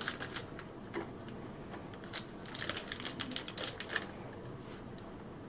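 A run of light clicks and taps from kitchen items being handled: a few near the start, then a quick cluster in the middle.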